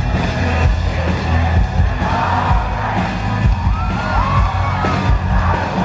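Live pop-rock band music played loud in a concert hall, heavy in the bass, with the crowd singing along and cheering.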